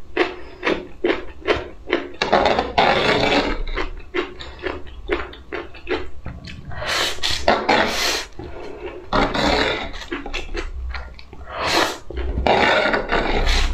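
Close-miked eating sounds: wet chewing with quick smacking clicks, then several long slurps as noodles are drawn off a fork into the mouth.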